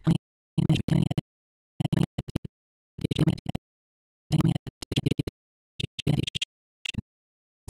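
A recorded voice line played back as Blender's audio scrubbing steps through it: about seven short, choppy fragments of speech, each cut off abruptly, with dead silence between them.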